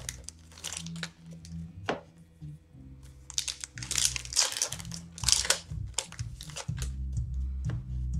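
Foil wrappers of Upper Deck hockey card packs crinkling and tearing in irregular bursts as packs are opened and cards handled, over quiet background music.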